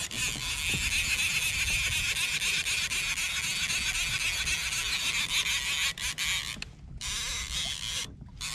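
Fishing reel drag buzzing steadily as a hooked fish, the wahoo being fought, pulls line off against the drag. The buzz breaks off briefly about six seconds in, comes back, then stops just after eight seconds.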